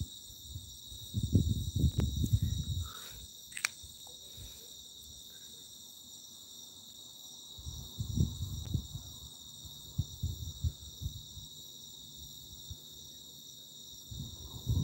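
Steady chirring of a cricket chorus at night. Twice, about a second in and again around eight seconds in, a louder low rumble rises over it for a few seconds.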